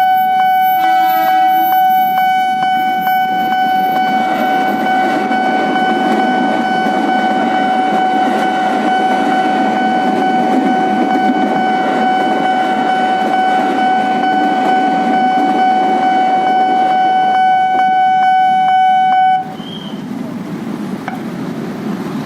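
Level-crossing warning signal sounding a loud, steady electronic tone that cuts off suddenly about 19 seconds in, over a rumble of passing traffic. A short horn toot sounds about a second in.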